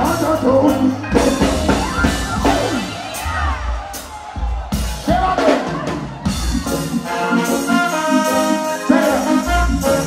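Live reggae band playing, with drums, a heavy bass, keyboard and saxophone, and a singer's voice over the music.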